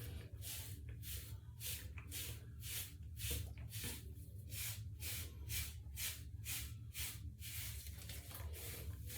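Wave brush bristles stroking through short hair in quick, even, hissing strokes, about two to three a second.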